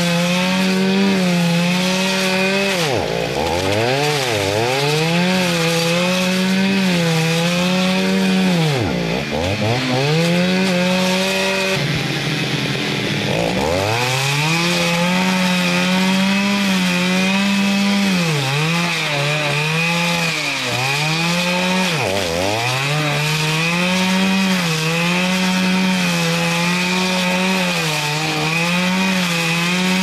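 Two-stroke chainsaw running at high revs at a log. Its pitch drops sharply and climbs back several times, mostly in the first half, then holds steadier with small dips.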